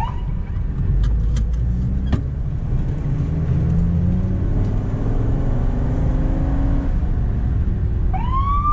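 Ambulance engine and road noise heard from inside the cab, the engine climbing in pitch as it accelerates, with a few sharp clicks about one to two seconds in. Near the end the siren starts up with a rising wail.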